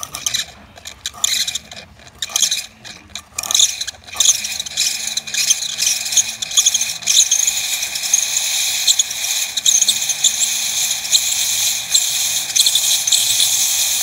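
DeLonghi PrimaDonna S super-automatic espresso machine's steam wand starting up. It sputters and spits irregularly for a few seconds, then settles into a steady high hiss of steam.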